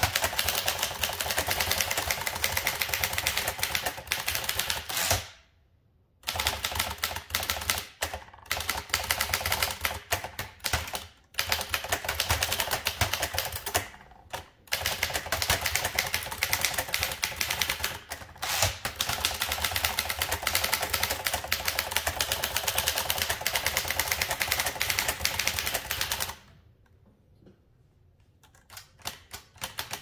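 Fast typing on a 1936 Dankers portable typewriter: a dense clatter of keys and type bars striking the platen. It pauses briefly a few times, then falls silent a few seconds before the end, followed by a few light clicks.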